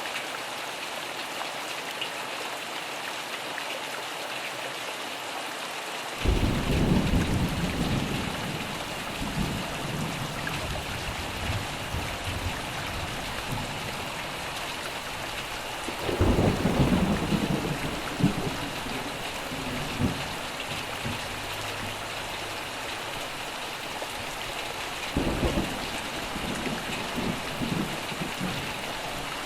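Steady rain falling, with thunder rumbling three times. Each peal starts suddenly and rolls on for a few seconds.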